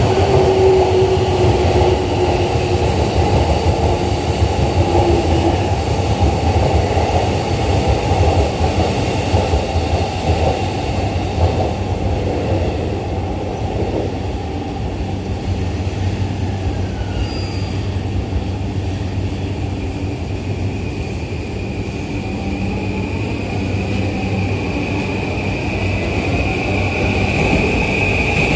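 JR East E235 series Yamanote Line electric train departing a station, over a loud steady rumble of rail noise. Near the end the train's motor whine rises in pitch as it pulls away and gathers speed.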